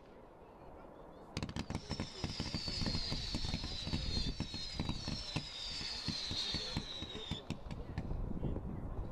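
Frozen Sun fan barrage firework cake firing: about a second and a half in, a rapid string of launch shots begins and keeps going. Several high whistles fall in pitch between about two and seven and a half seconds in.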